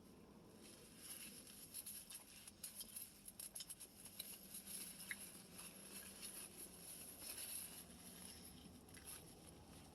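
Faint eating sounds: many small irregular clicks and soft rustles of chewing and handling fast food.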